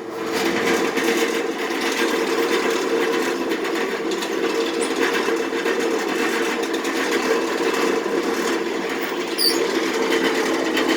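Electric drill motor running at a steady speed without a break, starting abruptly.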